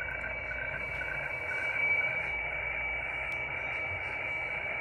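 HF radio weather-fax signal from the Boston marine fax station, played through a shortwave receiver: a steady high tone over static hiss, with a fainter lower tone beating regularly through the first couple of seconds. The pitch of these tones carries the shading of the weather chart being decoded.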